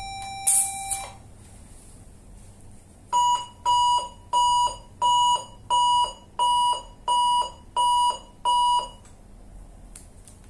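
Electrosurgical unit: for about a second its steady activation tone sounds, with a brief crackle as the monopolar electrode sparks into raw meat in blend cutting mode. Then, from about three seconds in, nine evenly spaced alarm beeps come at about one and a half a second. This is the unit's E01 patient-plate alarm, given when the return electrode loses contact.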